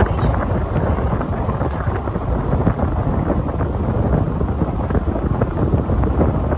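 Wind buffeting the microphone of a camera in a moving car, over the car's road noise: a loud, even, low rush with no pitch to it.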